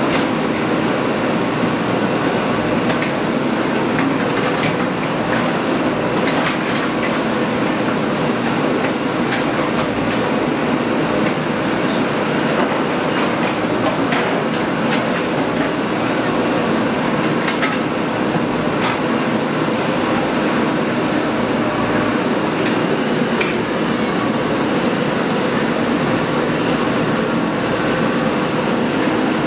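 Diesel engine of a JCB earthmoving machine running steadily under work, with scattered metallic clicks and clanks throughout.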